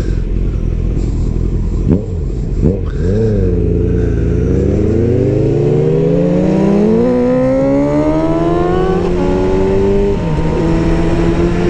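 Motorcycle engine accelerating: its pitch rises steadily for several seconds, drops with gear changes about nine and ten seconds in, then holds steady at cruising speed, over rushing wind noise.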